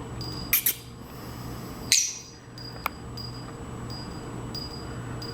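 Pet bird giving two short, sharp squawks about half a second in, then a louder, harsher squawk at about two seconds, followed by a single faint click.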